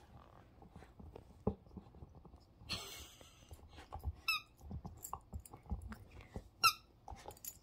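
Labradoodle puppy chewing a rubber squeaky ball: soft chewing and mouthing sounds, with the toy's squeaker giving two short high squeaks that drop in pitch in the second half, the second one the loudest.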